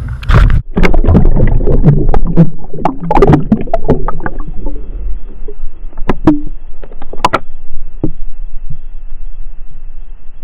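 Water sloshing and knocking against a GoPro Hero 3 housing held underwater, muffled the way underwater sound is. A dense jumble of knocks and splashes for the first few seconds, thinning to scattered clicks and knocks.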